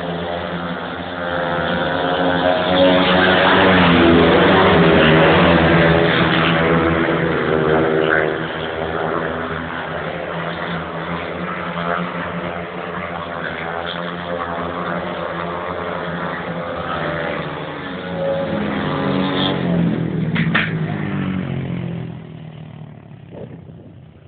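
Several speedway motorcycles with single-cylinder engines racing, their pitches rising and falling as they go through the bends. They are loudest a few seconds in, swell again later, and fade away near the end.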